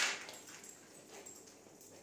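A fabric shoulder strap being handled: a brief scraping rustle right at the start, then a few faint rustles.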